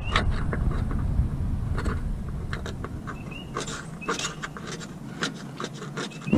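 Scattered light clicks and knocks of hand tools and suspension parts being handled during strut work, over a low rumble that fades out about halfway. A short, high rising chirp comes back a few times.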